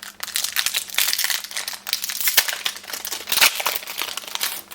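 Crinkling and crackling of a trading-card booster pack wrapper being torn open and handled, a dense run of sharp crackles.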